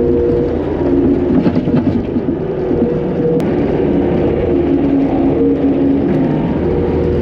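Takeuchi TL250 track loader's diesel engine running under load, with a hydraulic whine that shifts in pitch as the loader drives and works its bucket. A few knocks come about a second and a half in, and a sharp click about three and a half seconds in.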